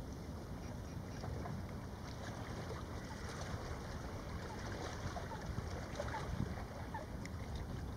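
Outdoor ambience of wind buffeting the microphone over the gentle wash of lake water, a steady low rumble with no clear calls.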